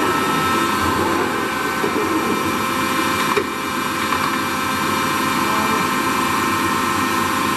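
Toolmex TUR 560 M engine lathe running, its headstock gear drive giving a steady whine with several steady tones. A single clunk about three and a half seconds in as a headstock lever is shifted, with a brief dip in the running sound.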